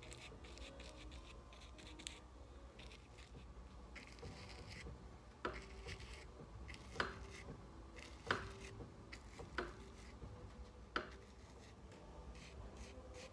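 Paintbrush scrubbing and dabbing oil paint onto a linen canvas: faint scratchy rubbing strokes, with five sharper taps from about five seconds in.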